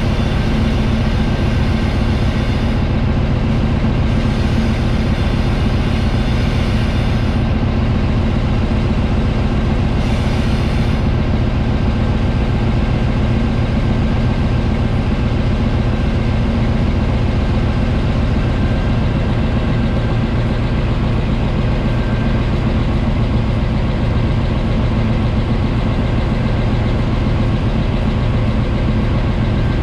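Diesel-electric freight locomotive's engine running steadily, heard close up from the outside of the moving locomotive, with a few spells of high hiss in the first eleven seconds.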